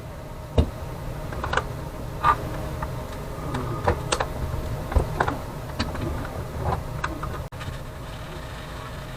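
Handling noise at a soldering bench: scattered small clicks, taps and knocks at irregular intervals as parts and tools are picked up and set down, over a low steady hum.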